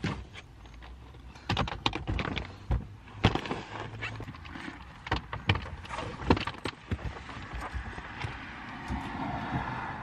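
Irregular thumps and knocks of luggage, a hard-shell suitcase and a bag, being loaded and shifted in a car's trunk.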